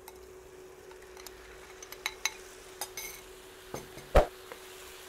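Grated tomato spooned out of a glass bowl into a frying pan of vegetables, with light clinks of the spoon against the glass and a faint sizzle, over a faint steady hum. About four seconds in the glass bowl is set down with one sharp knock, the loudest sound.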